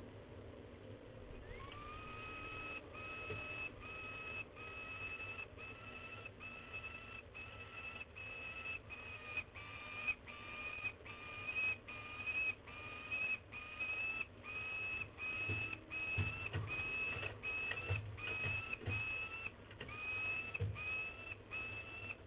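Young peregrine falcon giving a long series of even, drawn-out, steady-pitched calls, a little more than one a second, starting about a second and a half in. A few dull low thumps come in the second half.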